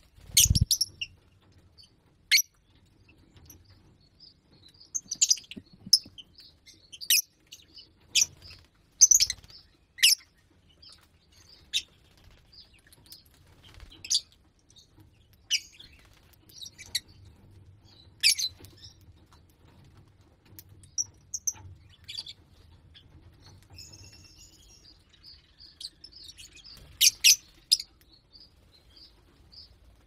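Lovebirds chirping: short, sharp, high calls every second or two, with a quick flurry of calls near the end. There is a low bump just after the start.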